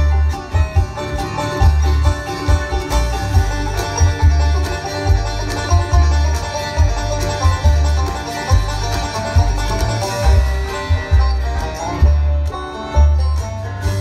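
Live bluegrass band playing an instrumental tune on banjo, mandolin, fiddle, guitar and upright bass, with a heavy, boomy bass line pulsing under the picked strings.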